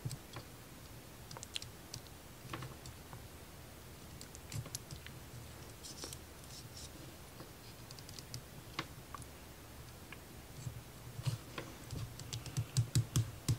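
Light clicks and taps of laser-cut plywood model parts being handled as a thin wire is threaded through the wooden axle assembly, with a quicker run of small knocks near the end.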